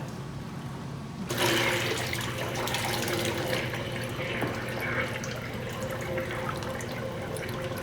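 The giant toilet flushing a bowlful of coffee: a sudden rush of draining liquid starts about a second in and keeps going.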